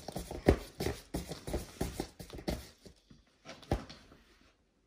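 A dog's quick, irregular clicking and tapping, about four a second, thinning out about three seconds in, with one louder knock just before the fourth second.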